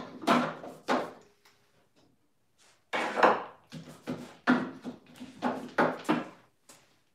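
A paintbrush working primer into the wooden inside of a cabinet: a run of short scrapes and knocks against the wood, a few at the start, then a denser run from about three seconds in.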